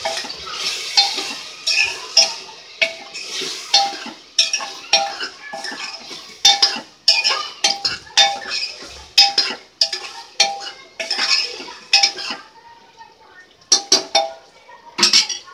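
Metal ladle scraping and clinking against the sides of an aluminium pressure cooker while stirring vegetables and spices in hot oil, about two strokes a second, over a faint sizzle. The stirring stops about twelve seconds in, with a few last clinks near the end.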